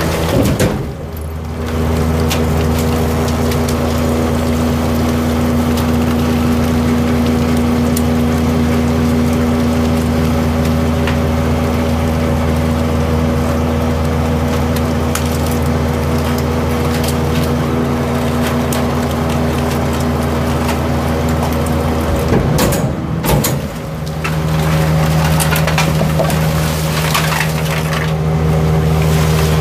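Cummins 8.3-litre inline-six diesel engine of a refuse truck running steadily at a low speed. The sound breaks off briefly twice, about a second in and again around 23 seconds in, and after the second break it runs on with a slightly different tone.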